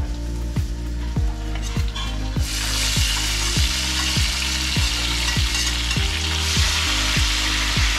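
Food goes into hot oil in a pan about two and a half seconds in, and the oil starts and keeps up a steady loud sizzle. Under it runs background music with a deep bass beat a little under twice a second.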